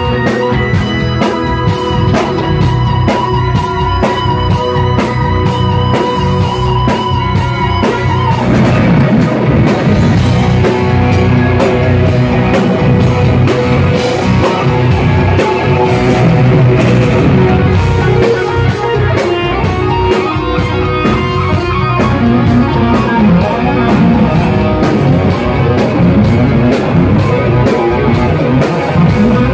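Live instrumental rock band: a lead electric guitar holds a long note with vibrato, then moves into a busier melodic passage about eight seconds in, over drum kit and bass guitar.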